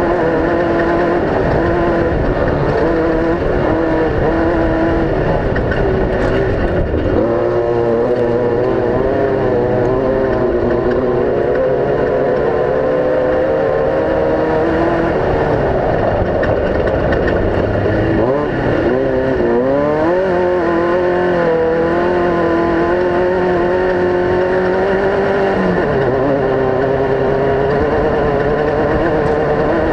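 Several off-road race vehicle engines running at once, their notes overlapping, with one revving up in pitch about two-thirds of the way in.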